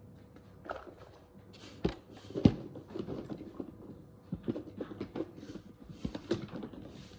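Fidget toys being handled and set down: a run of small clicks, taps and rustles, with a sharp knock about two and a half seconds in.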